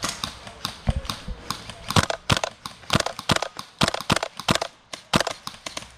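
Crunching footsteps on dry ground, a quick irregular series of sharp steps about three a second.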